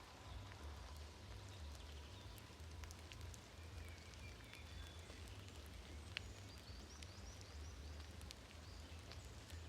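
Faint forest ambience: a few distant bird chirps and scattered small clicks over a low steady rumble, with one sharper click about six seconds in.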